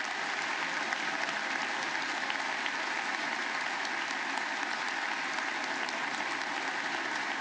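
A large audience applauding, many hands clapping in a dense, steady ovation.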